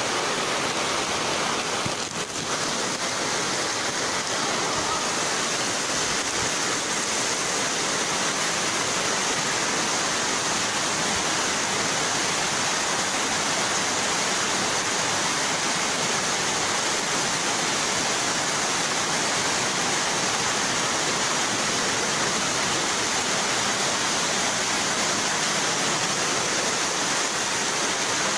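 Floodwater from a heavy downpour rushing across a flooded floor in a steady, unbroken torrent.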